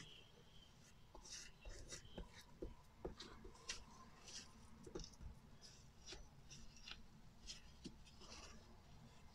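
Faint, irregular scraping and scratching of a spatula being drawn across a mold packed with a damp, crumbly baking-soda and Epsom-salt mixture, leveling it.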